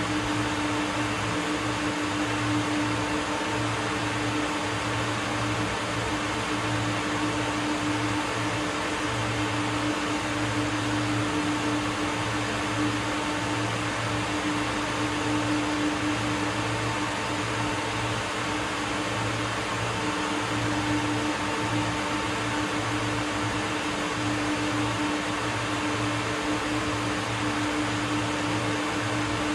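Steady machine hum with airy noise and a constant low drone, like industrial equipment and ventilation running unchanged.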